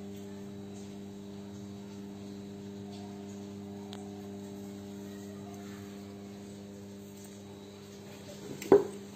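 Steady electrical mains hum, a low drone with several even overtones. A single short, loud sound cuts in near the end.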